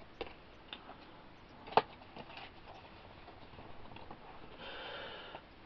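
Quiet handling of trading cards: a few light clicks and taps, a sharper tap just under two seconds in, and a soft rustle near the end.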